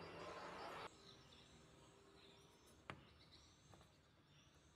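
Near silence: faint background noise with a soft hiss that cuts off about a second in, a single light click about three seconds in, and faint bird chirps in the distance.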